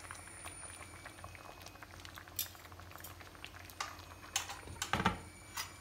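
Quinces simmering in sour cherry syrup over low heat, the syrup bubbling with a steady fine crackle. A few sharper clicks and pops stand out, the loudest about five seconds in.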